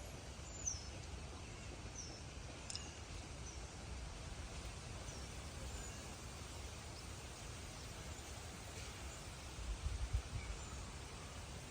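Quiet outdoor ambience with faint, short high-pitched bird chirps recurring every second or so, and a brief low rumble near the end.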